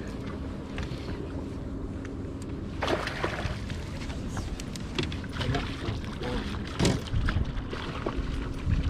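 Wind and water lapping against the hull of an aluminium bass boat, under a faint steady hum. A few short knocks and rattles on the deck come about three, five and seven seconds in, as the landing net is picked up.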